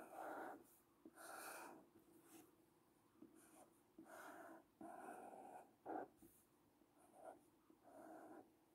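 Felt-tip marker drawing strokes on a paper card: a series of faint, short scratchy swishes, each under a second, with pauses between strokes.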